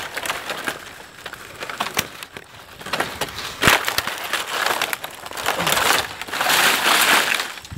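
Dry fronds rustling, crackling and snapping as they are pulled aside by hand, with a loud snap about halfway through and a denser stretch of rustling near the end.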